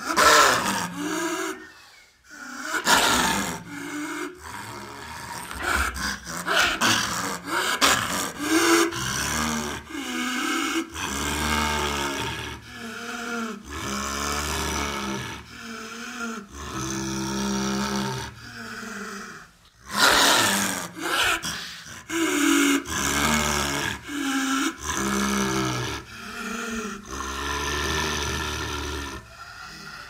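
A long run of edited baby dinosaur roar and growl sound effects: short calls, one after another, about one every half second to a second, with brief gaps.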